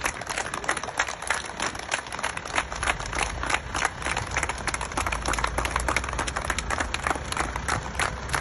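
A small crowd clapping steadily, many scattered hand claps overlapping, with a low rumble underneath.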